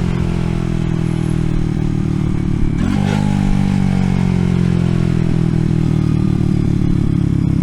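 RPS Racer 140 mini bike's single-cylinder engine running under way through a stainless steel side-exit exhaust. About three seconds in the pitch dips briefly, then climbs steadily as the bike pulls.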